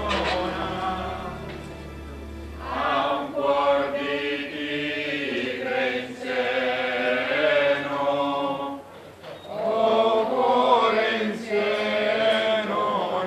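Procession of confraternity members singing a Holy Week lament hymn together in long phrases, with a short break in the singing about two-thirds of the way through. The singing comes in about three seconds in, as a stretch of background music ends.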